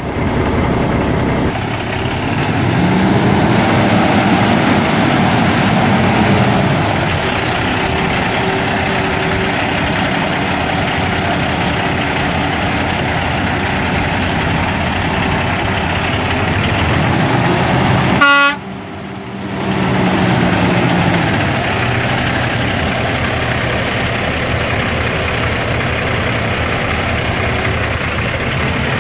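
Cummins ISX 14.9-litre inline-six turbo diesel in a 2006 International 9400i semi truck, running steadily and revved up and back down twice, with a faint high whine rising and falling along with the first rev. About two-thirds of the way through there is a very brief horn toot, followed by a short dip in the engine sound.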